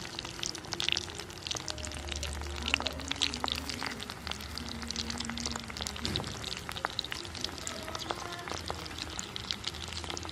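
Gram-flour-battered prawns deep-frying in bubbling oil in a black kadai: a dense, steady crackle of small pops and spits.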